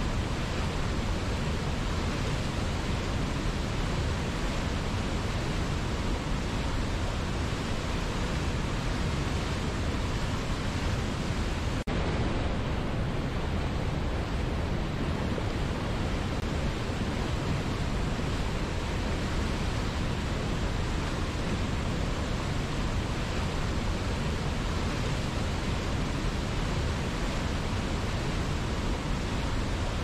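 Steady rushing of a waterfall and whitewater rapids, an even full roar of falling and tumbling water without breaks.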